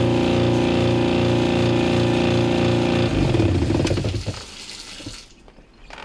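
InSinkErator garbage disposer running with water flowing through it: a loud hum with a regular throb, a noise the technician traces to the pivoting blades after finding nothing jammed and the motor turning freely. About three seconds in the disposer is switched off and winds down, leaving the faucet running until it is shut off near the end.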